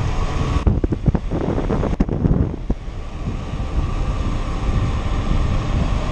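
Wind buffeting the microphone of a camera on a bicycle riding along a paved road, a steady low rush. A few sharp knocks and rattles come between about one and three seconds in.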